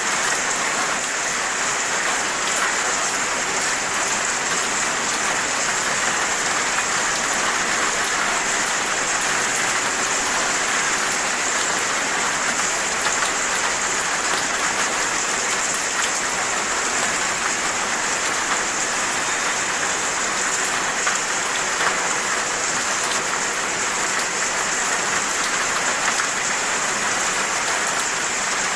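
Steady rain falling on surfaces, an even hiss dotted with fine drop ticks.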